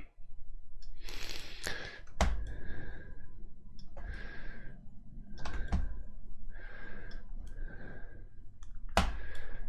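Computer mouse clicking sharply about five times, with soft breaths close to the microphone between the clicks.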